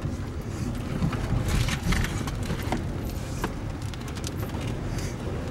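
Inside a vehicle driving through a severe thunderstorm near a tornado: a steady low rumble of wind and road noise, with scattered short taps on the body now and then.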